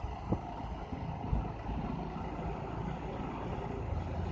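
Bajaj Pulsar 200 motorcycle's single-cylinder engine running steadily while ridden at low speed, mixed with road noise.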